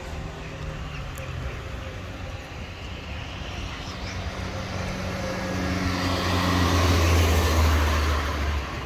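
A motor vehicle's engine hum and road noise, growing louder to a peak about seven seconds in and then dropping off shortly before the end.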